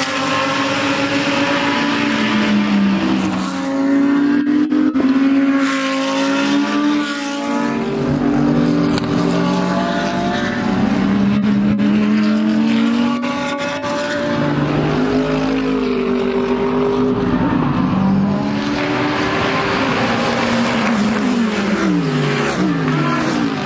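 GT3 race car engines at racing speed, among them the Audi R8 LMS EVO II's V10. The engine notes rise and fall again and again with acceleration and gear changes, with a run of falling steps near the end.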